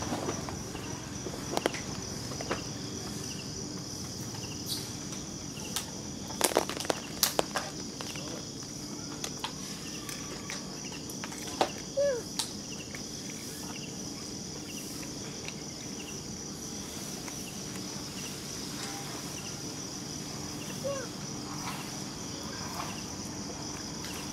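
Steady high-pitched chirring of insects, with several sharp clicks, clustered about six to seven seconds in, and two brief faint squeaks, one midway and one near the end.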